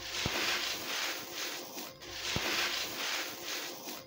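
Soft dry concrete crumbling in the hands, its grit and sand pouring and pattering onto a sandy floor in repeated crunchy swells. Two low thumps sound, one just after the start and one about halfway through.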